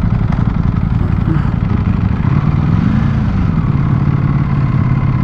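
Ducati Panigale V4 S's 1103 cc V4 engine running under way. Its pitch rises briefly about two and a half seconds in, then drops back and holds steady.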